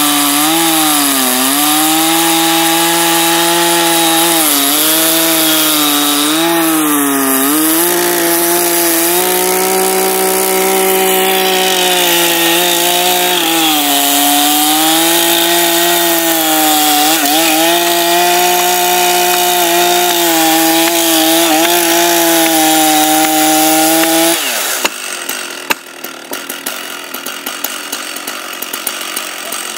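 Stihl 880 chainsaw's big two-stroke engine running at high revs as it cuts into a large oak log, its pitch sagging and recovering again and again as the chain bogs under load. About 25 seconds in, the engine sound drops away suddenly, leaving a quieter crackling noise.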